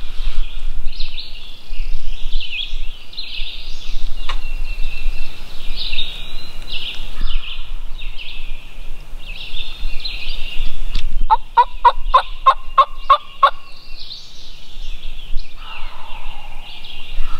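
Songbirds singing throughout. About eleven seconds in comes a loud run of about ten evenly spaced turkey yelps, lasting about two seconds, and a fainter turkey call follows shortly after.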